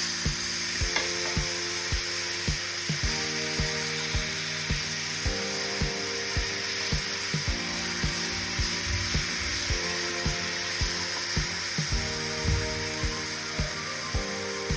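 Banana slices sizzling as they fry in butter and sugar in a pan, caramelizing. Background music with a steady beat plays underneath.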